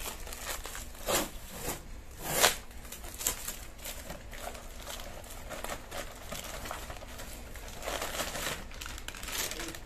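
Plastic wrap and a paper courier envelope crinkling and rustling as a parcel is handled and pulled open. A few sharper, louder crackles come in the first three seconds, and a longer spell of rustling comes near the end.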